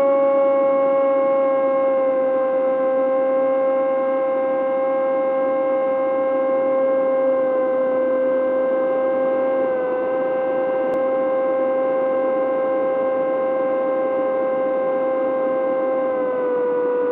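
Electric motor and propeller of an AR-900 RC flying wing in flight, heard from the onboard camera: a steady, loud whine with airflow noise beneath it. The pitch dips slightly about ten seconds in and falls a little near the end as the throttle eases.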